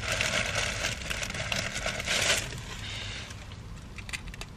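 Thin plastic shopping bag rustling and crinkling as hands dig through it for about the first two and a half seconds, then quieter, with a few light clicks and taps of small jewelry pieces being handled.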